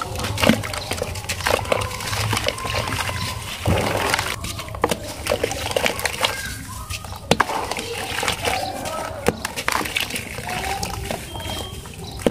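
Wet lumps of pure cement crushed and crumbled by hand over a tub of water, crumbs and grit falling and splashing into the water with irregular sharp crackles and sloshing.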